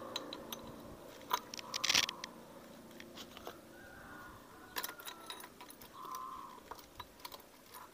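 Scattered metal clicks and clinks, loudest about two seconds in, as the cam timing sprocket and timing chain are fitted onto the camshaft in the cylinder head of a Yamaha Crypton engine.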